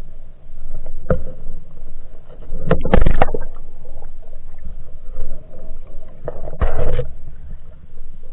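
Muffled water sounds picked up through an action camera's waterproof housing while swimming, with three louder noisy bursts, about a second in, around three seconds in and near seven seconds.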